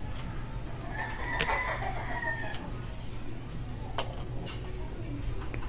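A rooster crowing once, starting about a second in and lasting about a second and a half, with a few sharp clicks from the plastic lamp being handled.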